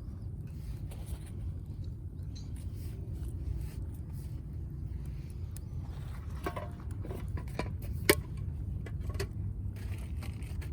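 Wood fire crackling in a UNIFLAME firewood grill: scattered sharp pops and snaps, one louder pop about eight seconds in, over a steady low rumble.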